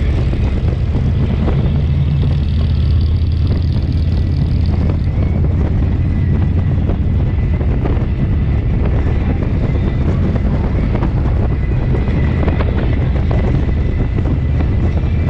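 Motorcycle running steadily at cruising speed, a constant low engine rumble mixed with wind and road noise on the microphone.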